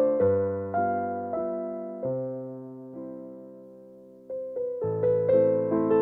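Background piano music: a gentle melody of single struck notes that ring and fade. About two seconds in the playing thins out to one long dying note, and the notes pick up again a little after four seconds.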